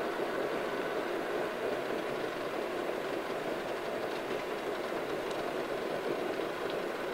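Homemade 12-volt pellet stove at full burn: a steady roar from its small combustion blower fan and the flame.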